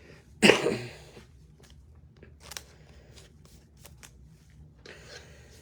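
Trading cards and plastic card holders being handled: a short, louder rustle about half a second in, then scattered light clicks and soft rustling of cards and plastic.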